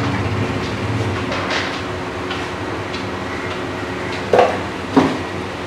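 Steady workshop hum with small handling clicks, then two sharp knocks about half a second apart near the end, as tools and parts are handled.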